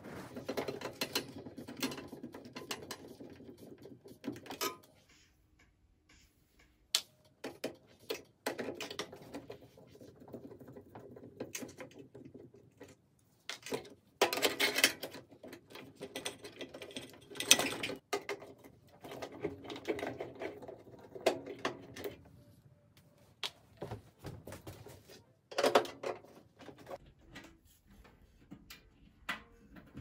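Irregular bursts of clicking and rattling from tools and metal parts as a scrap microwave oven is taken apart, with short quieter gaps between them.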